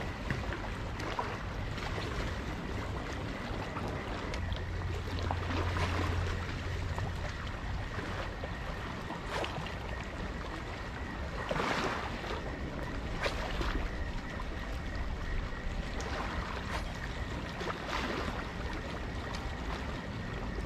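Small waves lapping and splashing against a rocky shoreline, with wind on the microphone and a low steady hum underneath.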